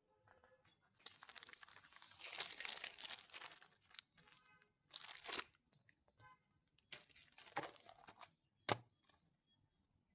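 Crinkling and rustling handling noises in several bursts, with one sharp click near the end.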